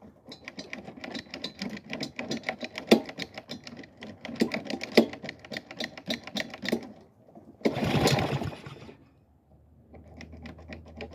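Small Honda lawn mower engine sputtering and firing unevenly, struggling to keep running before it stops about seven seconds in, followed by a brief rushing burst. It is running only on gas dribbled into the carburetor, with the fuel valve off, and backfiring.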